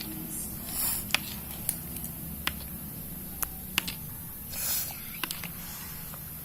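Slime being worked and mixed, giving scattered sticky clicks and squelches, with two short hissy squishes about a second in and again near five seconds.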